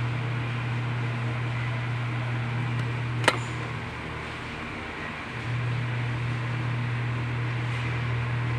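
A steady low hum over a constant hiss. A single sharp click comes about three seconds in; the hum drops out with it and returns about two seconds later.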